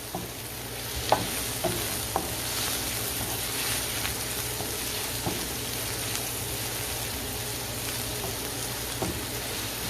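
Chopped vegetables and garlic sizzling steadily in a non-stick skillet, with a few short clicks of the stirring utensil against the pan.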